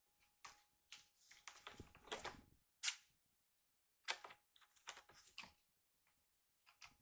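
A kitten scrambling on a cat tower, its claws scratching and catching on sisal rope and a cardboard scratcher in short, irregular scrapes and taps. The sharpest scrape comes about three seconds in.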